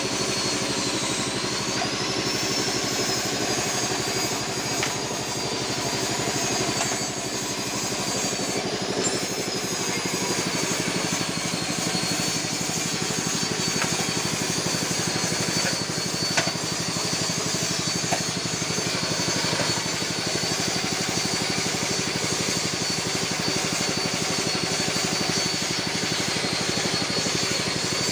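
Horizontal single-cylinder diesel engine running steadily, driving an areca-nut splitting machine through its chain drive, with a thin high whine that wavers in pitch and a few brief clicks.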